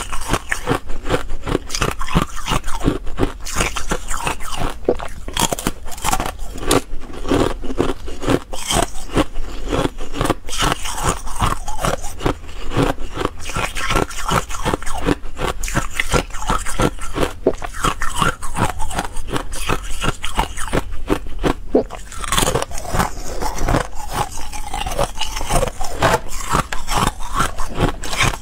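Ice being bitten and crunched between the teeth, close to the microphone: a rapid, continuous run of sharp cracks and grinding crunches as pieces of hard, ridged green ice bars are chewed.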